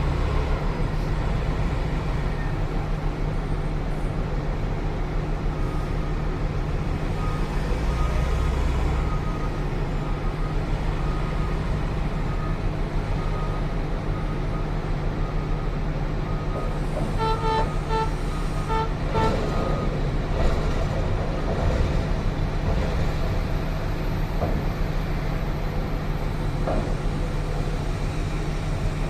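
Heavy mining diesel engines of a Cat 6020 hydraulic excavator and Cat 777 haul trucks running steadily, with faint intermittent beeping and then a quick series of short, louder beeps about two-thirds of the way through.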